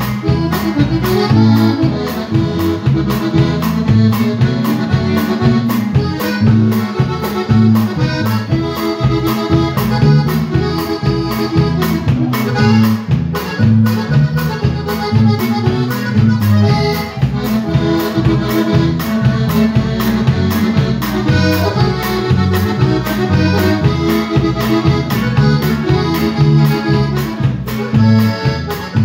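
Live band playing an instrumental polka: accordion carrying the melody over a steady, even beat with drums.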